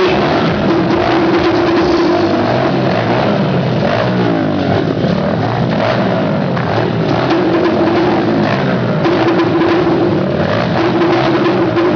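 Several dirt-bike engines running and revving inside a steel-mesh globe of death, their pitches rising and falling and overlapping.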